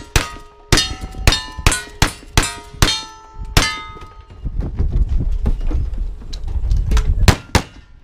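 A quick string of about ten gunshots in the first four seconds, each followed by the ringing clang of a steel target being hit. Near the end come two louder shots a fraction of a second apart.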